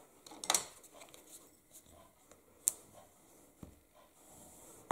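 Folded cardstock being handled and creased with a bone folder: a paper rustle about half a second in, a sharp tap near the middle, and a faint rubbing near the end.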